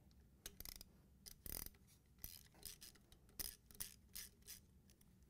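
Ratchet and 3/8-inch socket working the nuts off a washer motor's mounting studs: faint, irregular clicks and rasps in short strokes.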